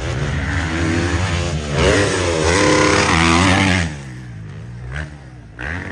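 Motocross dirt bike engine revving hard, its pitch climbing and dropping again and again through the gears. It is loudest in the middle, falls away suddenly about four seconds in, and rises briefly once more near the end.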